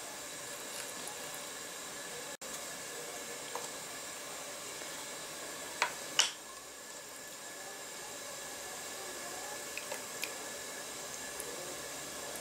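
Faint taps of a tiny knife cutting bacon on a small wooden cutting board over a steady hiss, with two sharp clicks close together about six seconds in.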